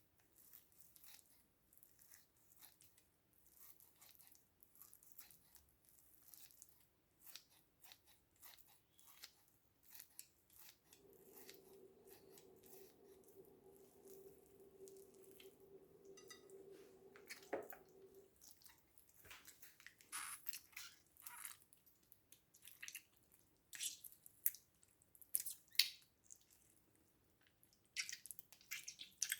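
Faint, scattered clicks and small sticky squishes of slime being mixed or handled. A steady low hum sounds for about seven seconds midway.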